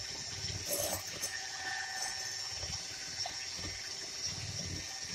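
Electric hand mixer with twin beaters running steadily at its lowest speed, whisking egg yolks in a glass bowl: a steady motor whine with the beaters swishing through the liquid yolks.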